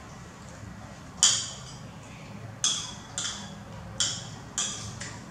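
A metal spoon clinking and scraping against a ceramic plate of pumpkin porridge, five sharp ringing clinks spaced out from about a second in.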